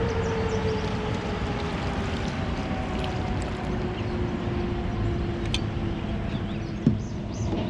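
Boat motor running with a steady hum that slowly falls in pitch, over a continuous wash of wind and water noise.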